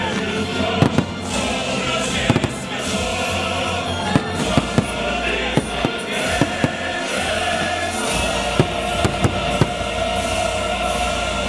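Fireworks display: many sharp bangs going off at irregular intervals over loud music.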